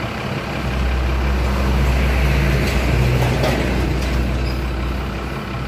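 Mercedes-Benz truck's diesel engine running with a deep, steady hum, growing louder over the first two seconds as the truck draws closer, then easing slightly near the end.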